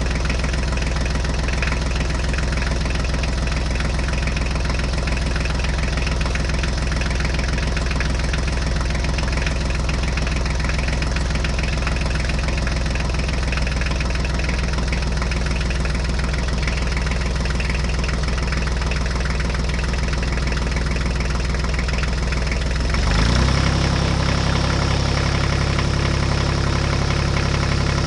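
Tractor engine sound effect idling steadily, with a shift in engine pitch and a slight rise in loudness about 23 seconds in.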